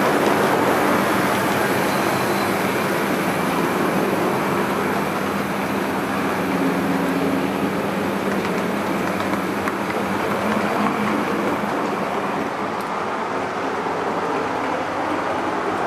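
An O scale model train running along its track: a steady whirring electric motor and rolling wheels, with an even hum that holds throughout.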